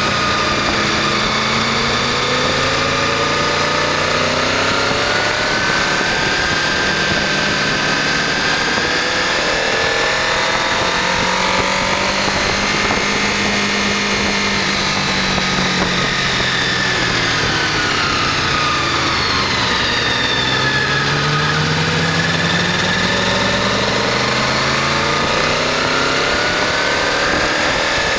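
1998 Honda VFR800's V4 engine under way, its revs rising and falling again and again as the bike accelerates and eases off through the bends, over a steady rush of wind.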